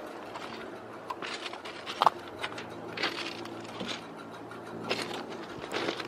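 Footsteps crunching on gravel and dirt, irregular steps about half a second to a second apart, over a faint steady hum.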